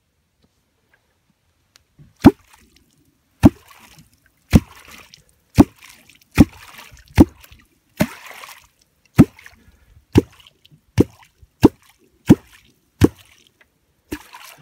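Catfish clonk struck into the water about once a second, starting about two seconds in: each stroke a deep, hollow plop with a short splash. It is the call used to draw wels catfish up toward the bait.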